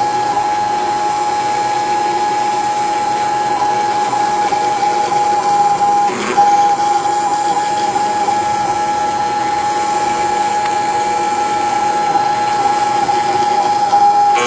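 CNC router spindle milling an aluminum plate with a small end mill: a steady high-pitched whine over the rough chatter of the cut. There is a brief dip with a click about six seconds in.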